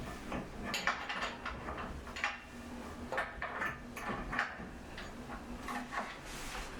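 A wrench working the bolts of a wooden Newcomb Studio Loom's frame during disassembly: a run of short, irregular metallic clicks and scrapes.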